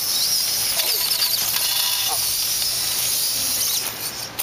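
Small electric robot drive motors whining, their pitch rising and falling as the robots drive and turn, over a steady high hiss. Faint voices in the background.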